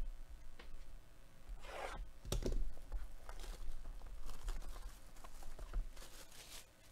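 Plastic shrink-wrap being torn and peeled off a sealed trading-card hobby box, crinkling in short bursts, with the loudest rip a little over two seconds in.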